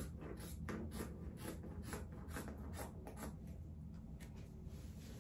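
Quick scratchy strokes of a marker drawn across a thick woven tapestry blanket, about two or three a second, thinning out after about three seconds.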